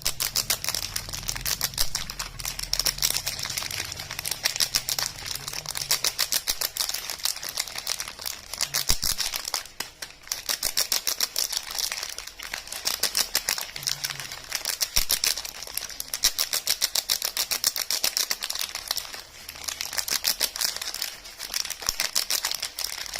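Soap packaging being handled and unwrapped: a fast, continuous crackle of crinkling wrapper and clicks, with short lulls about ten seconds in and again near the end.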